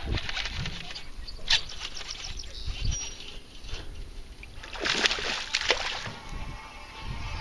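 A hooked largemouth bass splashing and thrashing at the water's surface as it is reeled in. There are several sharp splashes, the loudest cluster about five seconds in.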